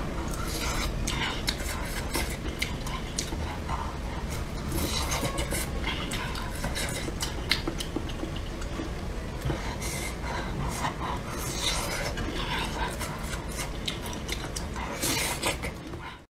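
Close-miked eating of spicy hot pot: chewing and mouth smacks, with chopsticks clicking and scraping against the bowl and the hot pot container in many short, irregular clicks.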